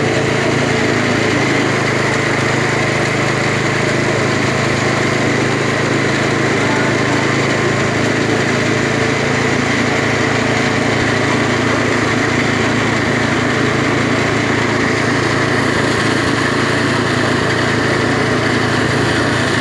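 Small petrol engine running steadily at constant speed, driving the rollers of a sugarcane juice press.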